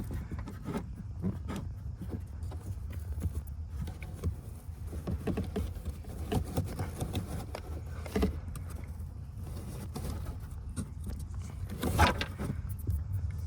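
Scattered clicks and knocks of a hand and tools on plastic trim under a car's glove box as Torx screws come out and a trim cover is taken off, with one loud knock about twelve seconds in, over a steady low rumble.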